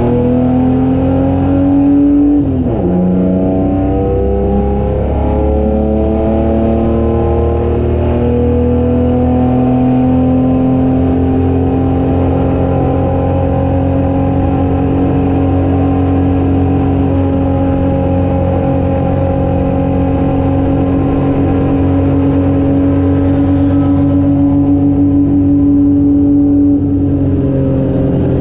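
Holden HQ race car's straight-six engine heard from inside the car at full throttle. The pitch drops sharply about two and a half seconds in at a gear change, climbs again, then holds at high revs for most of the run down a long straight, with a slight dip near the end.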